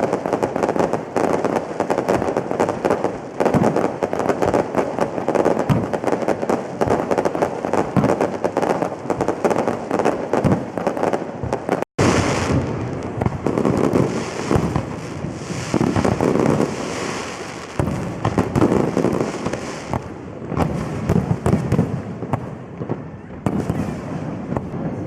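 Fireworks display going off continuously: dense, rapid pops and crackles with heavier bursts among them. The sound cuts out for an instant about halfway through.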